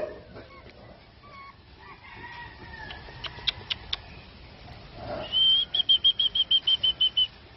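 Birdsong: faint scattered chirps, then about five seconds in a bird sings a rapid run of about a dozen short, clear notes that fall slightly in pitch over about two seconds. A few sharp clicks come a little past the middle.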